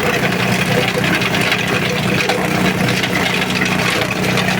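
Organic waste grinding machine (shredder and pulper) running with a steady hum and rattle.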